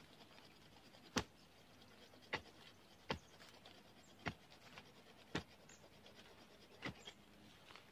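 Hand digging tool striking soil and roots while a young tree is dug out for bonsai material: six sharp strikes at an uneven pace, about one a second.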